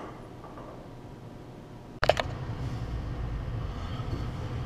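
Quiet workshop room tone, then about two seconds in a sharp clatter followed by a steady low hum.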